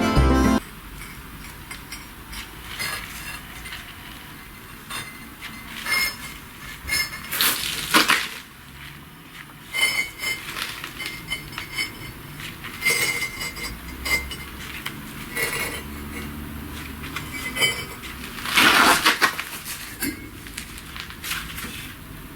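Bricklaying work: metal hand tools clinking and tapping against hand-molded clinker bricks in scattered, irregular strokes, with a few scrapes, the longest and loudest near the end.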